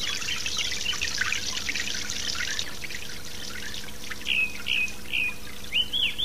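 Water pouring from a watering can onto a flower box, a splashing trickle that stops after about two and a half seconds. Then a bird chirps several short notes.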